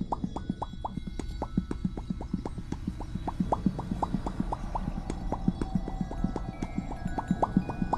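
Popcat meme sound: a quick, even run of short mouth pops, about four to five a second, each with a slight upward flick in pitch.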